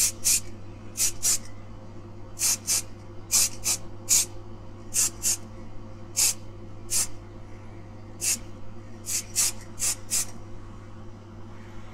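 Aerosol spray-paint can hissing in about twenty quick short blasts, often two close together, stopping about ten seconds in, as a colour coat goes onto a small die-cast car bonnet.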